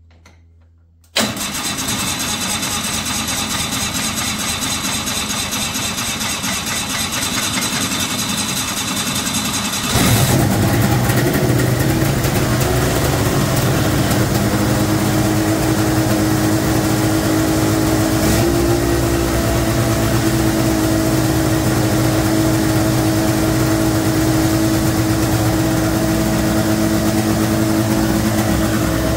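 A 1992 Ski-Doo Mach 1's two-stroke engine is cranked by its electric starter off a jumper pack after about ten years of sitting. It fires about ten seconds in and keeps running at a fast, steady idle, with the idle set too high.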